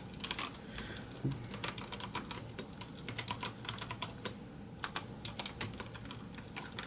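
Mechanical keyboard keys pressed by hand, some one at a time and some in quick runs, giving irregular clicks.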